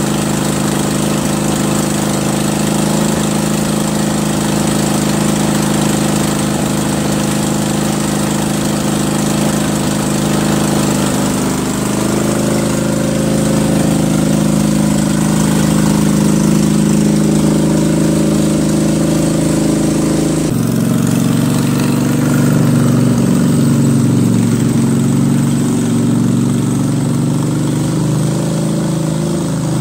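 Kohler Command 20.5 hp V-twin engine of a lawn tractor running under way, its speed stepping up about a third of the way in. In the last third its pitch wavers up and down: the surging that the owner blames on a dirty carburetor.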